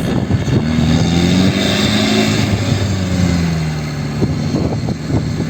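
4x4 diesel pickup engine driving. Its note rises over the first couple of seconds, eases back and then holds steady, with a few short knocks near the end.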